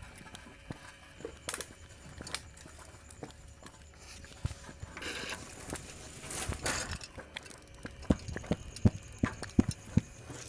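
Rustling of leaves, twigs and long grass as a person moves through undergrowth, heaviest about five to seven seconds in, with scattered light clicks and taps; a quicker run of sharper taps comes near the end.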